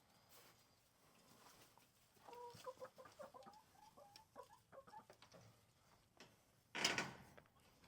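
Chickens clucking quietly: a run of short, pitched clucks starting about two seconds in, then a louder, harsher sound near the end.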